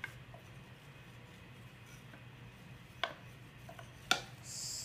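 Wooden spoon stirring in a red plastic bowl, with two sharp knocks of the spoon against the bowl, about three and four seconds in, and a brief hiss near the end.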